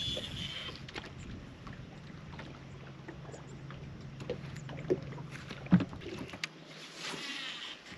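Bow-mounted trolling motor on a bass boat humming steadily, then shutting off about six seconds in. Small clicks and knocks of rod and baitcasting reel handling are heard over it. A brief high whizz of a cast comes at the start and again near the end.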